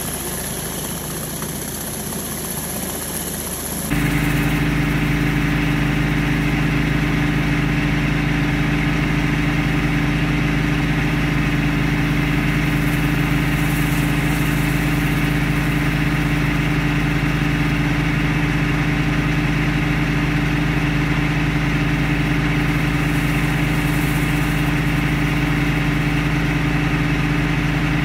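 Gas-engine pressure washer, an 8 gallon-per-minute Honda machine, running steadily at full throttle while driving a surface cleaner over concrete. The sound changes suddenly about four seconds in, after which the steady engine hum is louder.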